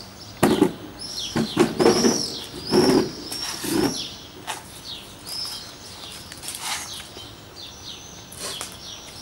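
Stacked chairs with plastic seats and tubular metal frames clattering and knocking as one is pulled from the stack and set down, several knocks in the first four seconds. Small birds chirp repeatedly throughout.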